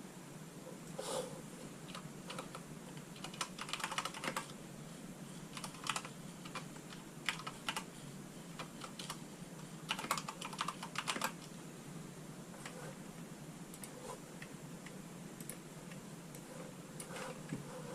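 Crinkling and crackling of a Pokémon card booster pack's foil wrapper being torn open and the cards handled, in scattered bursts of small clicks, over a faint steady hum.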